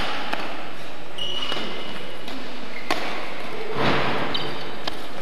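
Badminton rally: sharp racket strikes on the shuttlecock a couple of seconds apart, with short high squeaks of trainers on the sports-hall floor between them.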